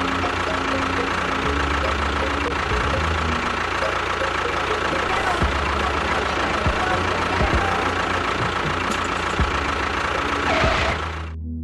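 Small motor running steadily with a constant whine, stopping abruptly near the end.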